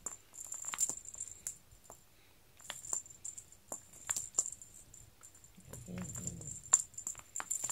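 A cat-teaser wand toy jingling and rattling in quick on-and-off shakes, with many light ticks and taps. A brief low voice sound comes about six seconds in.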